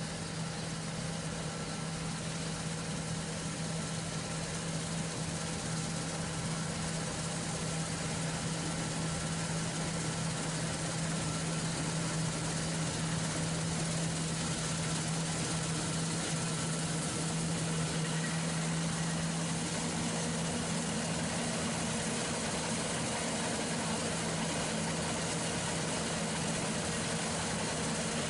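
Diesel engine of a John Deere harvest machine running steadily at constant speed, a low hum with hiss, heard from inside the cab.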